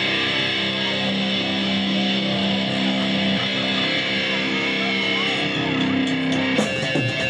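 Heavy metal band's song intro: electric guitars ring out in held notes, and the drums come in with hard hits near the end.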